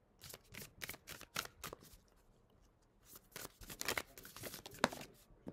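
A deck of tarot cards being shuffled by hand: two runs of quick flicking and slapping of the cards, the second starting about three seconds in.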